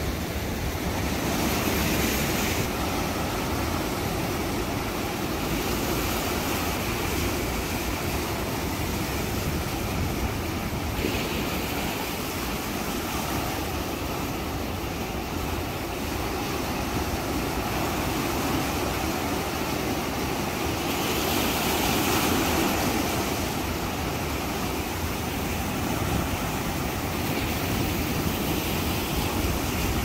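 Sea surf breaking and washing over a rocky shore, a continuous rushing wash that swells louder a couple of seconds in, again a little after twenty seconds, and near the end.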